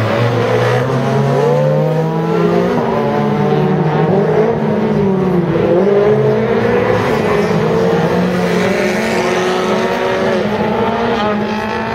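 Rally car engines being driven hard. At least two cars run together, their engine notes climbing under acceleration and dropping at gear changes and lifts.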